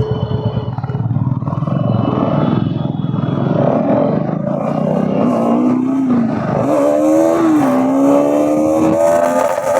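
Bajaj Pulsar NS200's single-cylinder engine pulling at low revs, then revving up from about halfway. Its pitch climbs, falls back twice and climbs again as the bike accelerates through the gears, with wind noise behind it.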